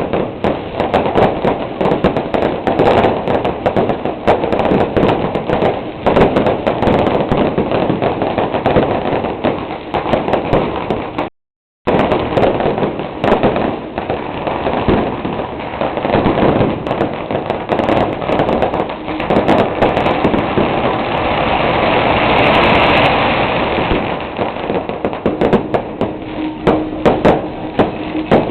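Firecrackers and fireworks going off in a dense, continuous crackle of rapid pops and bangs. The sound cuts out completely for about half a second a little before halfway, and a louder hissing swell rises and falls about two-thirds of the way through.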